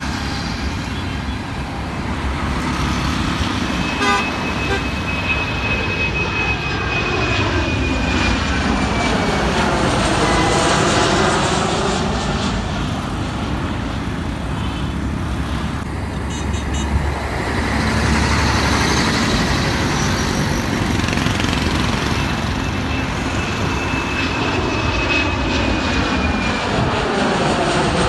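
Jet airliners on final approach passing low overhead one after another, a Boeing 787 Dreamliner and then a Boeing 737. Each gives a steady jet noise that swells as it passes, with a high whine that slowly falls in pitch. Road traffic runs underneath.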